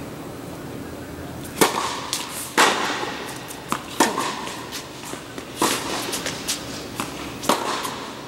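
Tennis rally on an indoor court: the ball is struck by rackets and bounces on the court, with sharp pops about every one to two seconds and lighter ticks between, each echoing in the hall.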